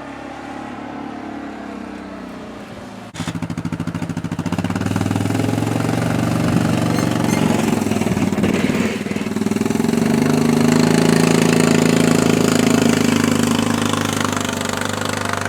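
Yamaha Rhino 660 side-by-side's single-cylinder engine running while pushing a snow plow blade through deep snow, its pitch rising and falling as it works. About three seconds in, the engine sound jumps suddenly louder.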